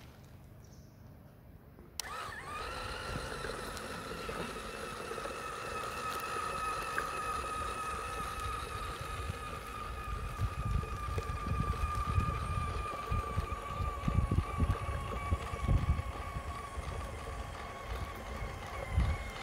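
Small DC motor of a toy car running, a steady high whine that starts abruptly about two seconds in and sags slightly in pitch. Under it, the rumble of the car's wheels on rough concrete, louder and more uneven in the second half.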